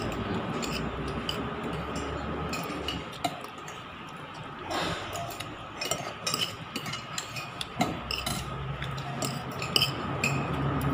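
Someone eating fried chicken by hand over a plate, with scattered small clicks and clinks of the plate and cutlery. A low engine hum comes in about eight seconds in.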